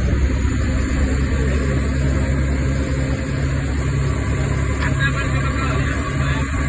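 Motorboat engine running steadily with a low, evenly pulsing drone, under a constant rush of noise.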